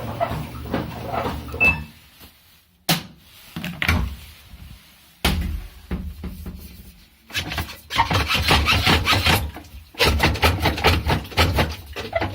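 Samsung front-load washer's drum knocking and rattling in bursts as it tumbles, pausing between turns with a few single knocks. The knocking is the sign of a broken drum spider.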